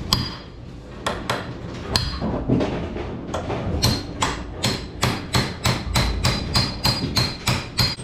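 Hammer blows driving a roll pin out of an AMF 82-30 pinsetter front roller assembly, with a metallic ring to each strike. A few separate blows come first, then from about three seconds in a steady run of about four or five blows a second.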